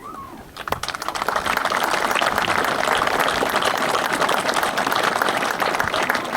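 Audience applauding, a dense patter of many hands clapping that starts about half a second in and keeps going.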